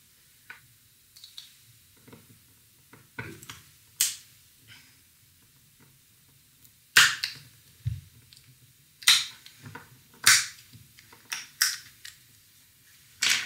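Irregular sharp snaps and clicks of a small glued plastic speaker case being pried apart with a small flathead screwdriver. The plastic clip tabs crack as the glued seam gives way, and a few of the snaps are loud.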